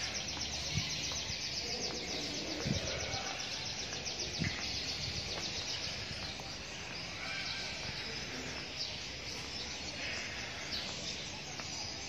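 Many caged small birds chirping and chattering together, a dense high twittering that is strongest in the first few seconds and fades somewhat later, over a steady hubbub.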